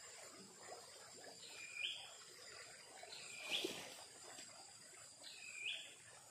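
Insects droning steadily at a high pitch beside a flooded river, while a bird repeats a short call that dips and then rises sharply in pitch, three times about two seconds apart.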